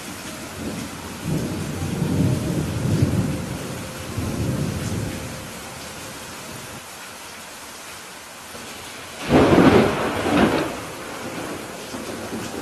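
Steady rain with thunder. A low rolling rumble starts about a second in and lasts a few seconds, then a louder crack of thunder comes about nine seconds in, in two strokes.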